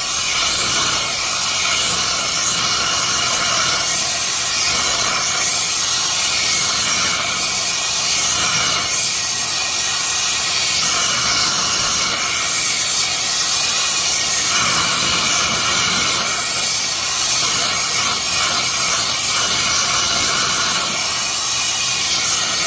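Oxy-propane torch flame hissing steadily as it heats the corner of a steel plate before bending.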